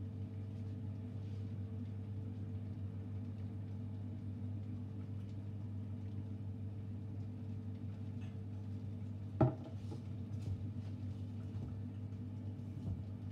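A steady low machine hum, with one sharp knock about nine and a half seconds in.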